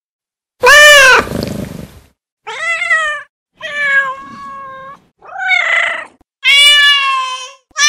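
Domestic cat meowing: five meows in a row, each under a second and a half long, with short pauses between them.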